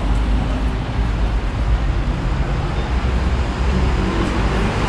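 Steady city street traffic noise: a continuous low rumble of cars passing on the street.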